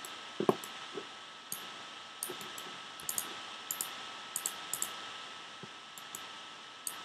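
Light clicking of a computer mouse, often in quick pairs and triples, as nodes are picked and wired. There is a soft thump about half a second in, all over a faint steady hiss and a thin high hum.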